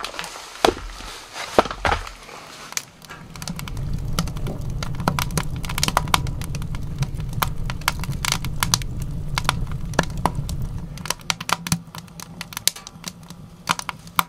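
Split firewood logs knocking together as they are set down, then a wood fire crackling and popping in a tent stove over a low steady rumble.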